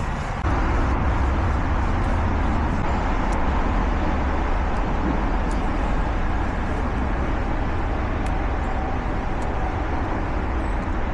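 Steady outdoor background noise: a low rumble with hiss over it, broken by a few faint small clicks.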